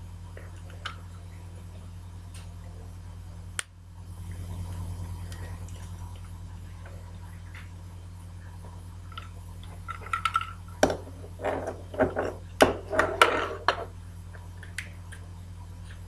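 A steady low hum with faint handling noise while a plastic Doh Vinci dough gun is squeezed. A single click comes a few seconds in, and past halfway a flurry of sharp clicks and knocks follows as the gun and dough are handled.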